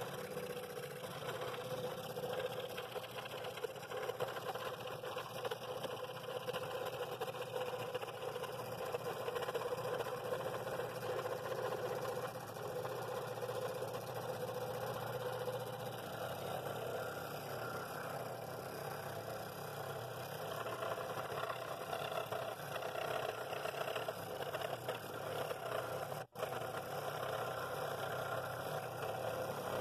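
Scroll saw running steadily with a number 9 Flying Dutchman blade, cutting the outer circle of a pine bowl blank.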